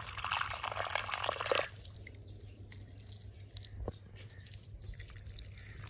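Water poured in a stream into an earthen clay pot of dry soil, splashing as the pot fills; the pouring stops abruptly after under two seconds, leaving faint background with a single light click later on.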